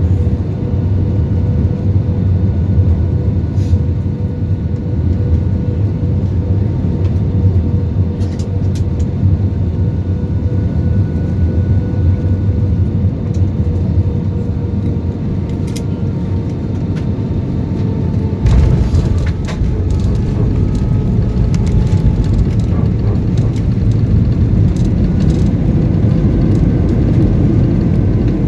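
Jet airliner cabin noise: a steady low drone of the engines and airflow, with faint high whining tones. About two-thirds of the way in there are a few clicks, and the low rumble grows stronger.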